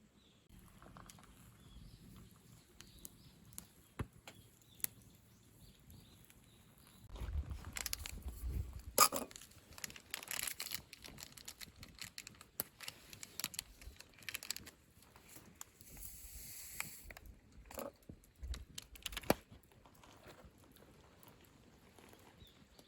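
Handling noises: rustling and crinkling with scattered sharp clicks and knocks. The busiest stretch falls about a third of the way in, and the loudest knock comes soon after.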